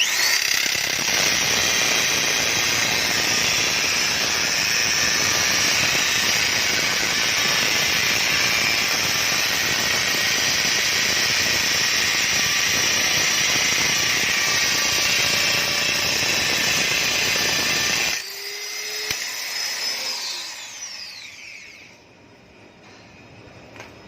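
Electric drill with a 6 mm bit boring into marble, running steadily for about eighteen seconds, then released and spinning down with a falling whine.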